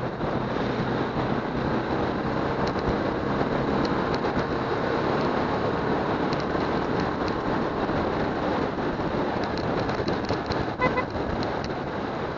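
Steady wind and road rush from a moving motorcycle, its engine running under the noise, with a brief beep near the end.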